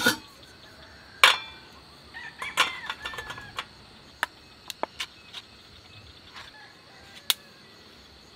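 Metal clinks and knocks of a frying pan and cooking utensils handled on a portable gas stove: a loud knock about a second in, then scattered lighter clicks. Faint bird calls come around two to three seconds in, over a steady high insect drone.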